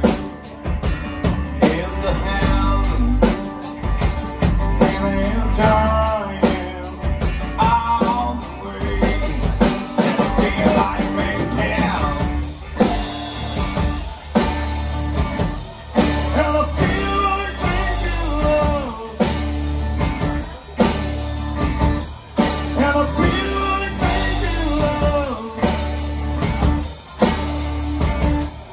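Live rock band playing a song: acoustic-electric guitar and drum kit, with a singer.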